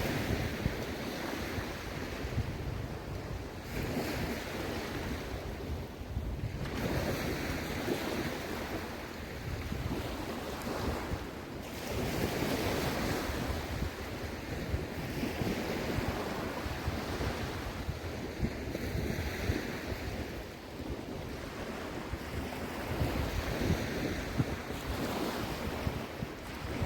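Small sea waves washing onto a sandy beach, the wash swelling and fading every few seconds, with wind rumbling on the microphone.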